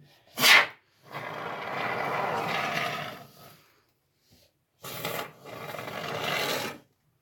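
Can of expanding foam spraying in bursts: a short, sharp spurt, a longer spray of about two seconds, then two more sprays near the end.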